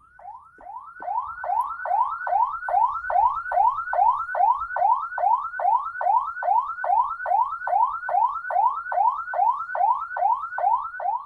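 Ambulance electronic siren in a fast, repeating sweep, about two and a half a second, each sweep climbing and then dropping back; it builds up over the first couple of seconds and cuts off near the end. This siren mode signals an ambulance carrying a sick patient who is not in an emergency.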